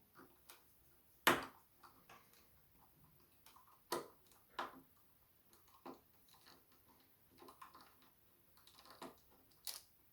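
A handful of sharp, scattered clicks and taps from a small screwdriver undoing a screw on a hard-drive housing, with quiet stretches between them.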